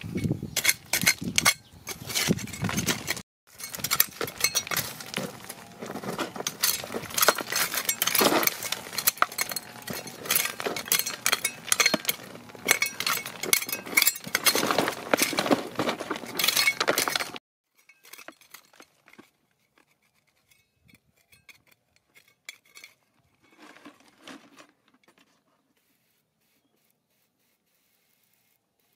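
Hard stones and crystal pieces clinking and scraping against each other in a rapid, busy clatter, which cuts off abruptly about two-thirds of the way through. Only a few faint clicks follow.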